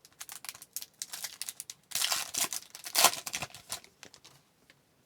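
Trading cards being handled and flipped through: a run of quick card clicks and flicks, with two louder crinkling, rustling rushes about two and three seconds in.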